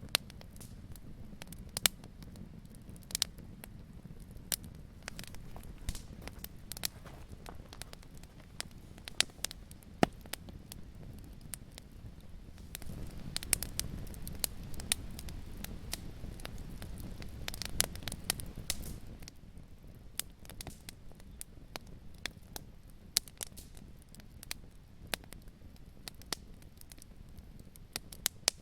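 Fireplace fire crackling, with sharp irregular pops over a low steady rumble that swells for a few seconds in the middle.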